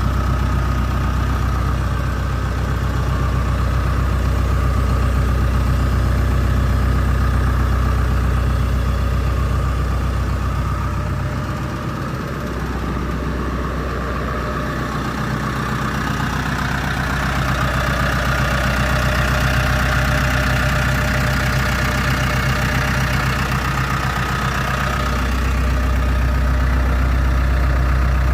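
Engine idling steadily after a completed repair, with a brief dip in level about twelve seconds in and a slight change in its low tone near the end.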